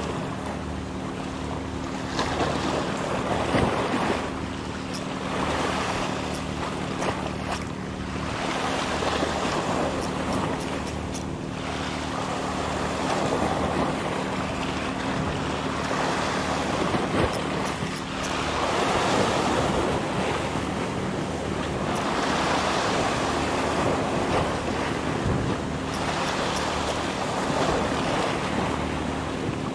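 Small waves surging and washing over a rocky shore, the surf swelling and falling back every few seconds, with wind buffeting the microphone. A steady low hum runs underneath.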